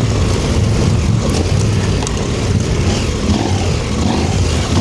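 KTM 790 Adventure R's parallel-twin engine running under load as the bike is ridden off-road over a soft sandy trail, over a steady rush of wind noise on the microphone.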